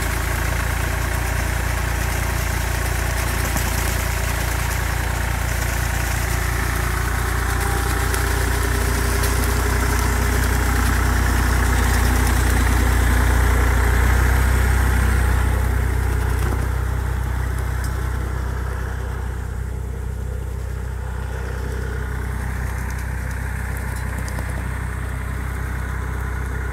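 Tractor engine running steadily, driving a hydraulic orchard sweeper whose rotating head throws leaves and soil. The engine is loudest around the middle, then eases off after about 17 seconds as the sweeping hiss fades.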